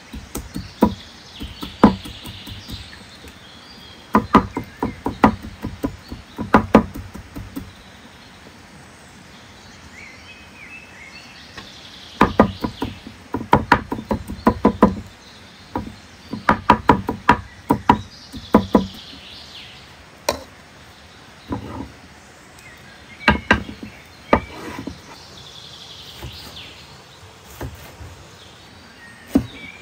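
Large kitchen knife chopping on a wooden cutting board in quick runs of strokes, with short pauses between runs.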